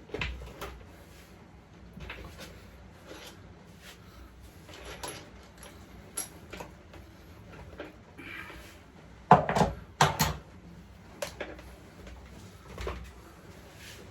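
Scattered knocks and clatter of pit bike parts and tools being handled during a strip-down, with two louder knocks about nine and ten seconds in.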